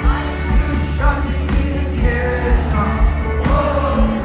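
A rock band playing live, with a male lead vocal singing over bass and guitar and a steady kick drum about twice a second.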